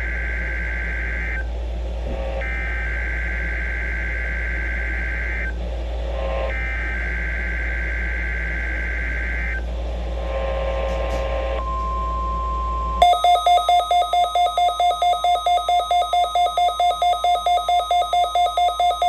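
NOAA Weather Radio Required Weekly Test: three bursts of SAME header data tones over the radio, each about three seconds long with a second's gap between. A faint steady tone then starts, and about thirteen seconds in a loud rapid beeping of about four beeps a second takes over.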